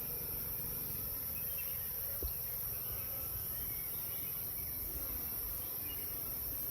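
Honeybees buzzing steadily around an opened hive, a continuous hum, with one faint short knock about two seconds in.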